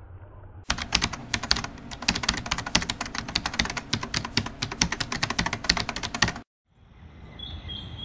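Rapid, dense clatter of typing clicks, a keyboard-typing sound effect, starting under a second in and cutting off suddenly about six and a half seconds in.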